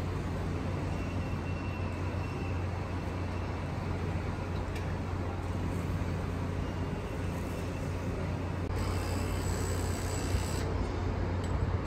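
Steady low rumble of running engines, with a brief high-pitched whine about nine seconds in that lasts around two seconds.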